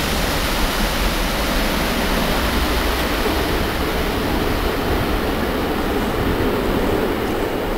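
Four turbofan engines of a Boeing C-17 Globemaster III on landing approach: a loud, steady rushing jet noise. The high hiss slowly thins out in the second half as the aircraft moves away.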